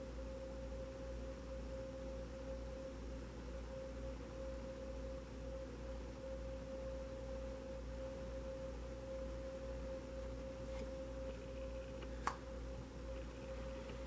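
Faint, steady pure tone with a low hum beneath it, and a single sharp click about twelve seconds in.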